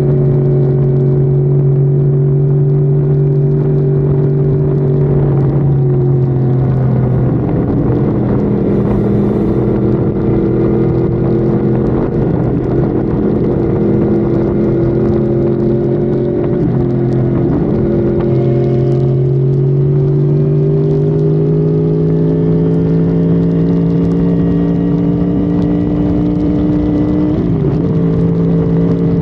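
Honda Civic FD engine pulling at highway speed over loud road and wind noise. The engine note holds steady, drops after about six seconds, then climbs slowly through the last third as the car accelerates.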